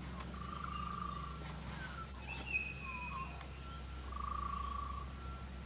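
Faint whistled notes: a long held tone about a second in and again near the end, with short gliding notes and a higher held tone in between, over a steady low hum.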